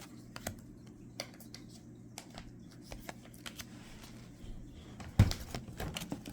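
2012 Topps Star Wars Galaxy trading cards being handled and flipped one by one, with light irregular clicks and slides of card against card. There is one louder knock about five seconds in.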